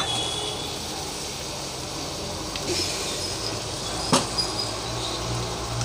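Chopped onions and capsicum with chilli and soy sauces sizzling steadily in hot oil in a frying pan, with a single sharp click about four seconds in.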